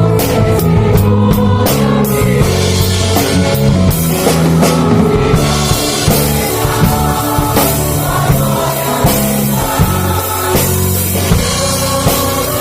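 Live Christian worship music: a group sings a Portuguese praise song over a band, with held bass and chord notes and a steady drum beat.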